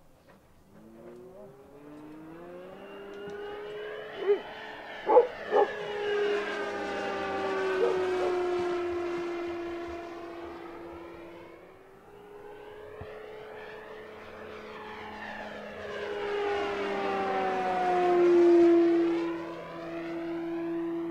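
Electric-powered Hangar 9 Fun Scale P-47 Thunderbolt RC warbird flying two passes on 6S with a 12x8 propeller. Its motor and propeller whine swells and falls in loudness and drops in pitch as it goes by each time, and the second pass, near the end, is the louder. Three short, sharp bumps come about four to six seconds in.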